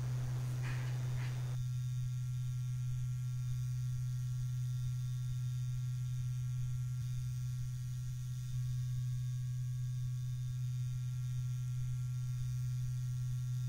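A steady low hum, one deep tone held unchanged throughout, with a couple of faint short hisses in the first second or so.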